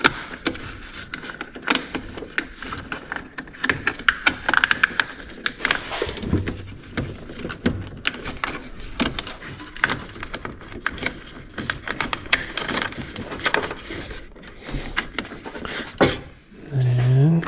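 Irregular small clicks, taps and knocks of parts and wires being handled and fitted by hand, with a sharper knock near the end. A brief low tone rising in pitch follows it.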